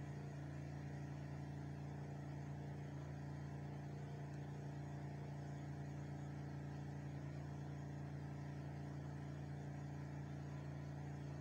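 Steady low hum, unchanging throughout, with no clicks or other events.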